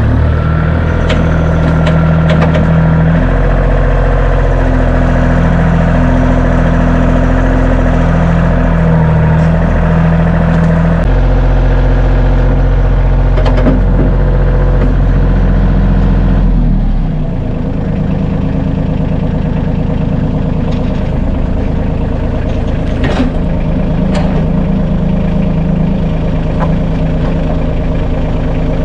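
Tractor engine running steadily at working speed, then dropping to a lower, quieter idle about seventeen seconds in, with a few sharp knocks along the way.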